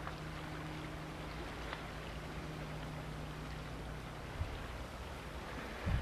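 Outboard motors of distant inflatable motorboats droning steadily over a constant rush of wind and choppy water, the drone fading out about two thirds of the way through as the boats pass. Two low thumps near the end, the second the loudest.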